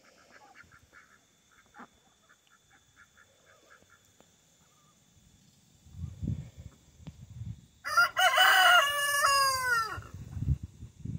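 Rooster crowing once, a call of about two seconds that falls in pitch at the end. Low rumbling thumps run under it from about halfway through, and faint quick chirping comes before it.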